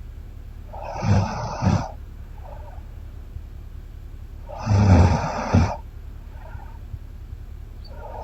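A sleeping woman snoring: two loud snores about four seconds apart, each with two surges. A much softer breath sound comes about a second after each snore.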